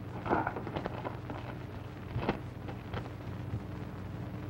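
Steady low hum and hiss of an old film soundtrack, with scattered faint clicks and brief rustles.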